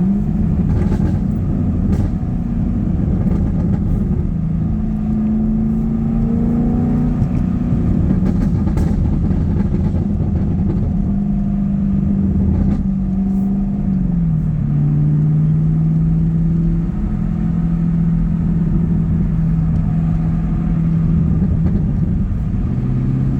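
6th-gen Camaro SS 1LE's 6.2-litre LT1 V8 running through an exhaust with the secondary cats deleted and a PLM axle-back, held at fairly steady revs. The engine note rises a little about a fifth of the way in and drops a little past halfway, with scattered crackles and pops from the exhaust.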